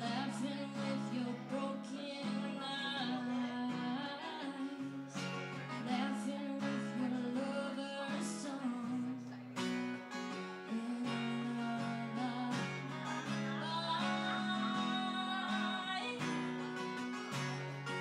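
A woman singing with a strummed acoustic guitar: steady chords under a sung melody.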